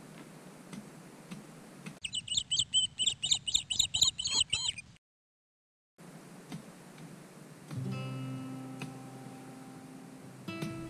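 A few faint pickaxe knocks. Then rapid high chirping, about four chirps a second for some three seconds, which cuts off into a second of dead silence. Acoustic guitar music begins about eight seconds in, with a strum near the end.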